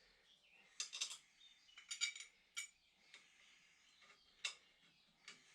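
Small steel parts, washers and nuts, clinking as they are handled and fitted onto a bolt, in a handful of short sharp clicks: several about a second in, more around two seconds, and a couple near the end.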